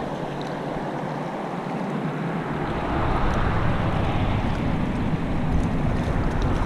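Gallatin River current rushing over riffles close to the microphone, with wind noise on the microphone. About three seconds in a low rumble joins and the whole grows louder.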